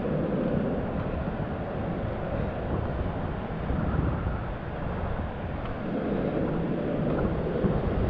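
Wind buffeting an action camera's microphone, a steady low rumble, with the wash of surf and shallow water over the rocks behind it.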